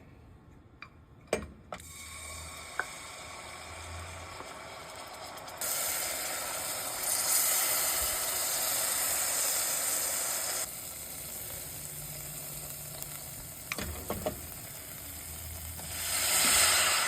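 Kitchen cooking sounds: a few sharp clicks, then a steady hiss that grows louder for several seconds, eases, and swells again near the end.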